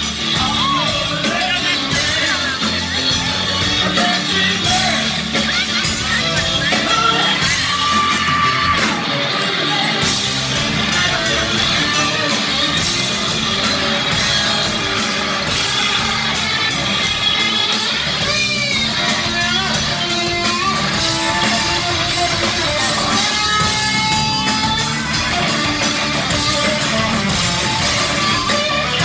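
Live rock band playing loudly: electric guitar, bass and drums, with a male lead singer belting and yelling into the microphone, heard from the audience in a concert hall.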